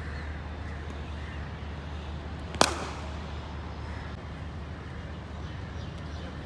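A single sharp crack of a cricket bat hitting the ball, about two and a half seconds in, over a steady low hum.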